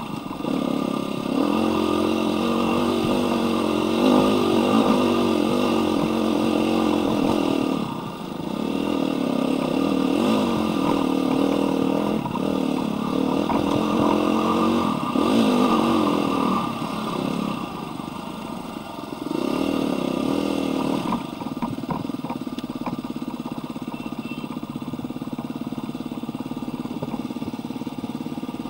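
Dirt bike engine heard from the rider's seat, revving up and down with the throttle over rough trail, with brief drops when the throttle is closed. About two-thirds of the way through it settles to a lower, steadier note as the bike slows.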